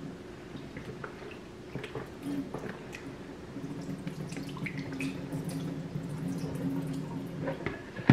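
Kitchen tap running into a sink, with small splashes and drips, as cut-up raw beef is rinsed by hand.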